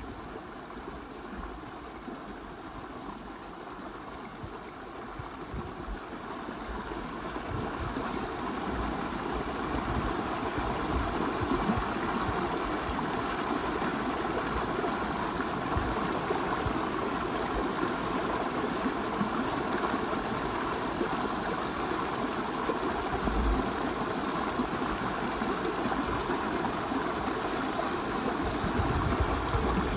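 Small mountain stream rushing and splashing over boulders in a steady, unbroken wash of water noise, growing louder over the first ten seconds or so.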